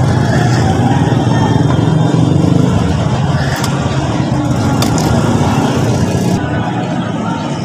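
Steady rumble of motor traffic with engines running, and two sharp clicks about a second apart in the middle.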